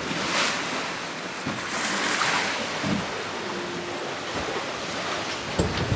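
Steady rush of wind and sea around a sailing catamaran under way under reefed sail, with wind on the microphone; the hiss of water swells up twice, just after the start and again about two seconds in.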